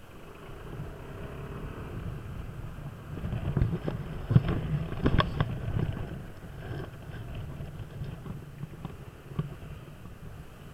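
Kymco Downtown 300i scooter's single-cylinder engine running while riding in traffic, with wind rushing over the microphone. About halfway through it gets louder for a couple of seconds, with several sharp knocks.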